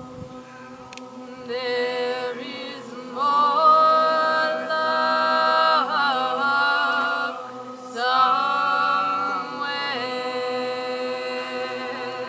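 A mixed group of voices singing long held notes as a chorus, over a low steady drone. The voices come in about a second and a half in, swell loudest a couple of seconds later, break off briefly and come back in at about eight seconds.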